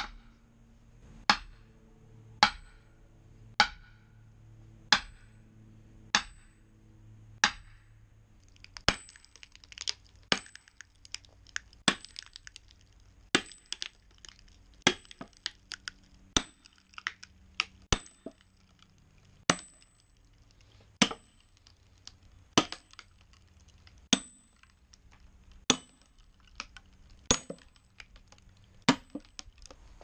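Sledgehammer striking a steel splitting wedge driven into the end of a hickory log, a sharp ringing clank about every second and a half. From about eight seconds in, faint crackling between the blows as the wood starts to split.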